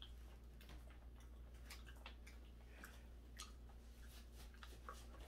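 Near silence with faint scattered clicks and ticks as a large plastic soda bottle is unscrewed and handled, and soda is poured into a paper cup.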